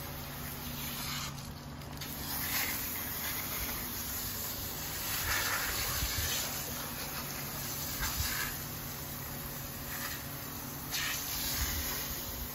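Water from an open garden hose running and splashing onto a dog's wet coat and the concrete beneath, swelling and easing several times as the hose is moved. A steady low hum runs underneath.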